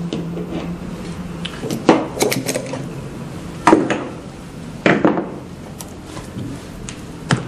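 Hand tools and small parts being handled on the metal and foil top of a sublimation heat press, giving a series of sharp, irregular clinks and knocks.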